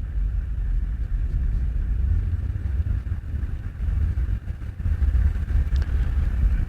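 Wind buffeting the microphone of a rider on a moving e-bike: a low, gusting rumble with no clear tone.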